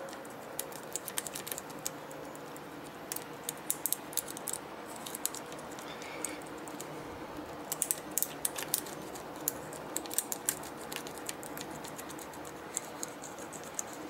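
Irregular light clicks and scratching as a homemade key cut from thin aluminium cat food can lid is rocked back and forth in a Master Lock padlock's keyway under light tension, working the pins to open the lock.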